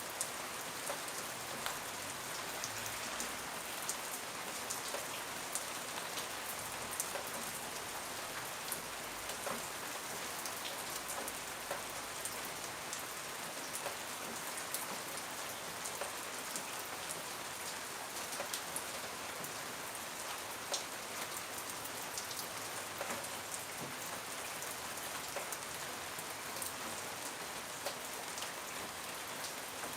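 Steady rain falling, a continuous hiss with many individual drops ticking on a surface.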